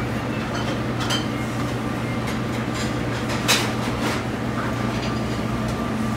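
Steady drone of a commercial kitchen's ventilation and equipment, with a few metallic clinks of a steel mixing bowl and utensils. The sharpest clink comes about three and a half seconds in.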